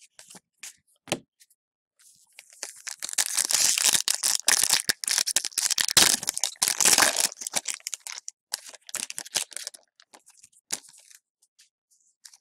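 Plastic wrapper of a hockey card pack being torn open and crinkled by hand: a dense, loud crackling rustle lasting about eight seconds, with a few light clicks of handled cards before and after.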